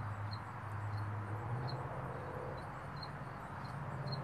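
Outdoor background: a steady low hum that steps up slightly in pitch about a second and a half in, with faint short high chirps repeating every half second or so.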